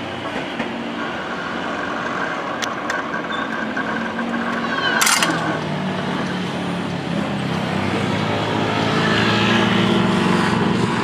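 A road vehicle's engine running and growing louder over the second half as it comes up to and over the level crossing. A steady high tone stops about five seconds in, just after one sharp click.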